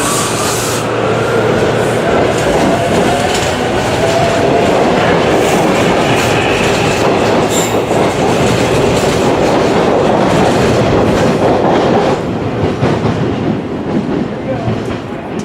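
Electric commuter train passing close by along the platform: wheels clattering over rail joints with some wheel squeal and a gliding motor whine, loud for about twelve seconds, then dropping away as the last cars go by.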